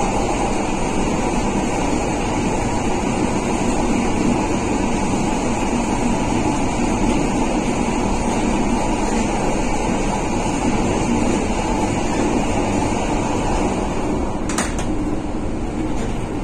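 Steady running noise inside the passenger car of a 1963 PaFaWag EN57 electric multiple unit: a dense, even rumble, with a single sharp click about fourteen seconds in.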